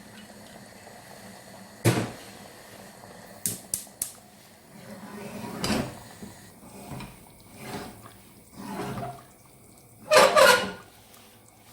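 Metal cookware handled on a stove: a sharp knock about two seconds in and a quick run of clicks a little later, then several short rushing, splashy noises, the loudest near the end.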